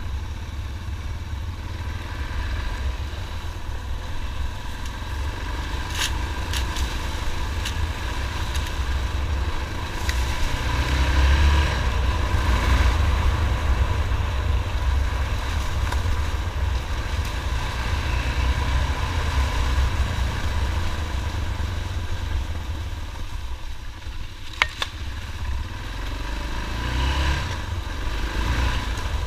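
Motorcycle ridden along a dirt track, its engine running steadily over a heavy low rumble and revving up and down twice, with a few sharp clicks from the bike.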